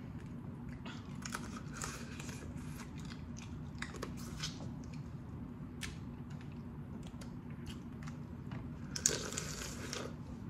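Boiled crawfish being eaten close to the microphone: shells cracking and snapping, with sucking and chewing sounds in short irregular bursts. A longer, louder slurp comes about nine seconds in.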